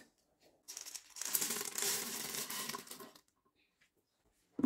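Dry red speckled (sugar) beans poured into the broth in an electric pressure cooker's inner pot: a noisy, rustling pour that starts about a second in, lasts about two seconds and stops abruptly.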